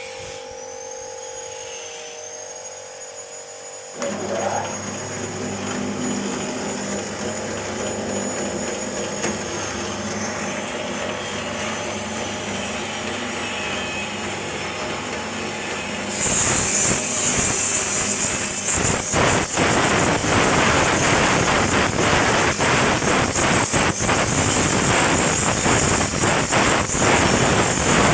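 Satay-skewer sharpening machine: its motor starts about four seconds in and runs with a steady hum. From about sixteen seconds in there is a loud grinding hiss with rapid rattling clicks as skewers are fed through to be pointed.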